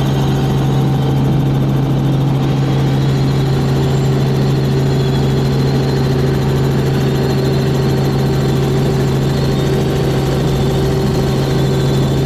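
Helicopter turbine and rotor running steadily: a constant loud drone with a strong low hum and an unchanging pitch.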